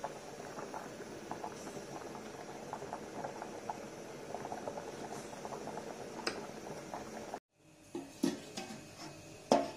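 Long-grain rice boiling hard in a large aluminium pot in plenty of water: a steady bubbling with small crackles and pops. A metal ladle scoops some out. After a sudden break about seven seconds in come a few sharp metallic knocks of a perforated steel strainer being set in place to drain the rice.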